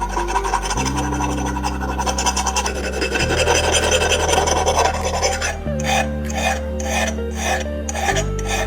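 Hand filing or scraping: a continuous rasping, then back-and-forth strokes about three a second from about six seconds in, likely rust being worked off the cast-iron grinder parts. Background music with sustained low notes runs underneath.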